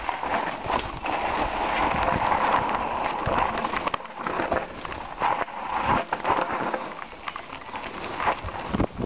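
Mountain bike riding fast down a dirt forest trail: tyres rolling over dirt and roots under a steady rushing noise, with constant rattling and sharp knocks from the bike as it hits bumps.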